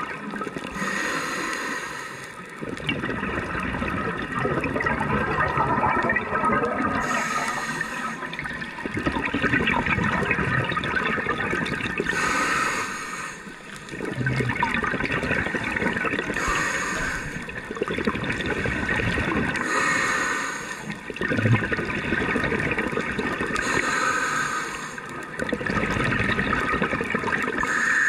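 Scuba breathing heard through an underwater camera: exhaled bubbles rushing and gurgling, broken by a short regulator hiss about every four to five seconds.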